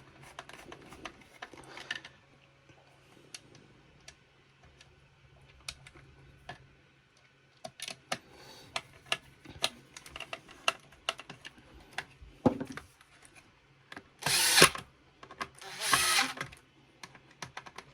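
Cordless impact driver running screws in, in two short bursts near the end. Before them come several seconds of small clicks and taps as parts and screws are handled.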